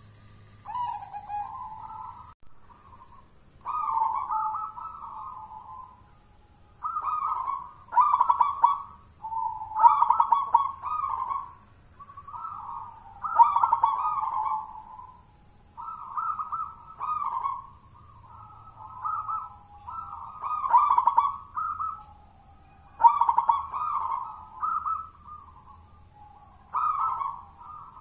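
A caged zebra dove (perkutut) cooing its song over and over: about a dozen phrases of rapid, warbling coos, each a second or two long, with short gaps between them.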